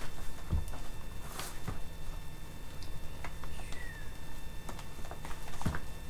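Scattered light knocks, taps and rustles of objects being handled on a desk, over a steady low hum.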